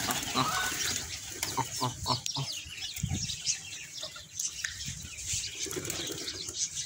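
Young chickens clucking and giving many short, high peeps amid a feeding flock of pigeons, with wings flapping now and then.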